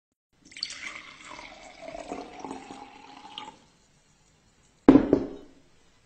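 Water poured from a glass carafe into a stemmed glass, splashing for about three seconds with a faintly rising tone as the glass fills, then stopping. About five seconds in there is a single sharp knock, the loudest sound.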